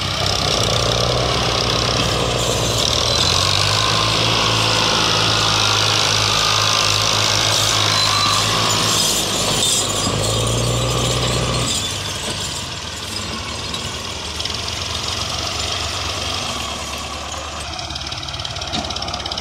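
Ghazi 65 hp tractor's diesel engine working hard, hauling a heavily loaded sugarcane trolley, its pitch shifting as it strains. About twelve seconds in it eases off and runs quieter and lower.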